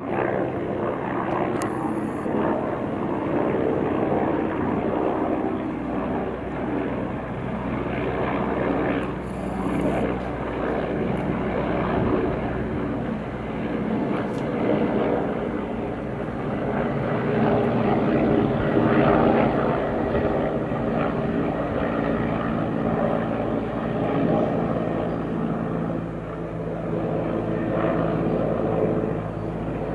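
Mil Mi-17 helicopter's twin turboshaft engines and rotor running steadily, a loud continuous drone with several steady tones in it.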